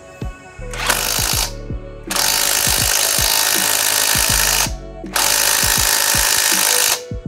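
Brushless cordless impact wrench hammering on a car's wheel lug nut to undo it, in three runs: a short one about half a second in, then two longer runs of two to three seconds each with brief pauses between. Background music plays underneath.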